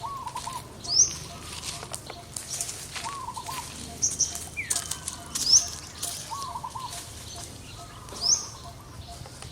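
Birds calling: a short wavering call of three or four quick notes recurs about every three seconds, with a sharp rising chirp between calls and scattered light clicks.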